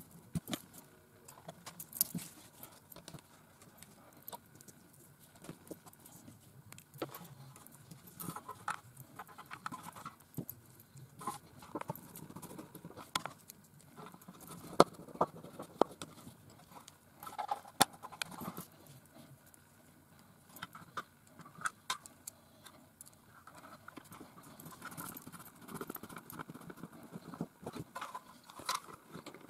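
Hands reassembling a portable radio: irregular clicks, taps and knocks of the plastic casing and parts, with soft rustling of the speaker wires being handled. The sharpest knocks come about halfway through.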